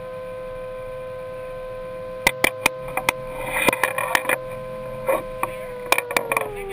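A small motor whining steadily at one pitch, beginning to wind down and fall in pitch near the end, with sharp clicks and knocks from about two seconds in.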